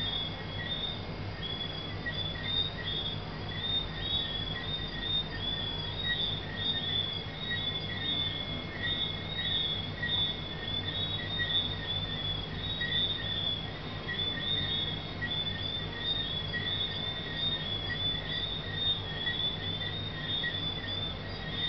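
Chorus of tree frogs calling, many short high whistled chirps overlapping several times a second without a break, over a steady low hum.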